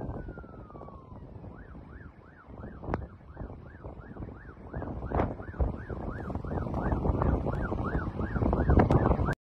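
Emergency vehicle siren: one long falling wail, then a fast yelp of about three rise-and-fall sweeps a second, with wind rumbling on the phone's microphone underneath.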